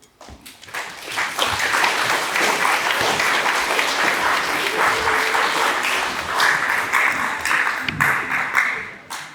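An audience clapping, made up of many rapid overlapping claps. It swells up within the first second, holds steady, and dies away near the end.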